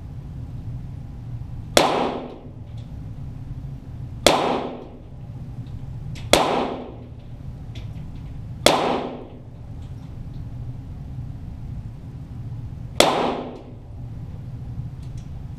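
.22 Walther GSP target pistols firing five single shots a few seconds apart, each a sharp crack with a short echoing tail.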